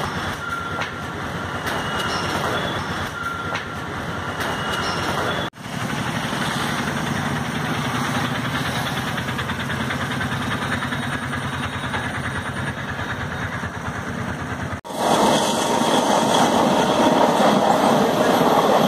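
Passenger train running on the rails: a steady rolling rumble with clattering wheels and coaches. It comes in three separate recordings that cut off abruptly, about a third and about three quarters of the way through; the last one is the loudest.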